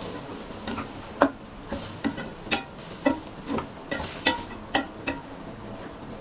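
A spatula stirring chopped vegetables in a stainless steel pot, knocking and scraping against the metal about twice a second, some knocks with a brief metallic ring.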